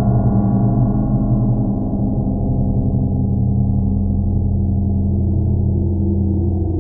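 Strong river current pressing on a submerged underwater camera: a loud, steady low drone with several held humming tones, the deepest hum growing stronger about halfway through.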